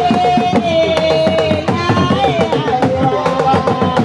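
Hourglass talking drums and other hand drums playing a fast, dense rhythm, with a long, held melody line over them.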